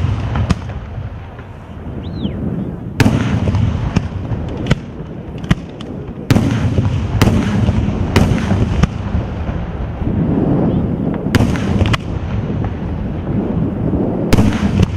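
Daytime fireworks in the San Severo style, a 'batteria alla sanseverese': aerial shells and firecrackers going off in about a dozen sharp, loud bangs at uneven intervals, over a continuous low rumble of the firing battery. A short rising-and-falling whistle comes about two seconds in.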